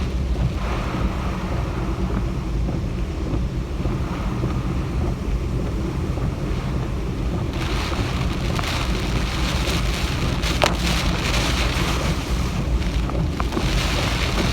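Typhoon wind and rain: a steady low rumble of gusts buffeting the microphone, with the hiss of heavy rain swelling from about halfway through.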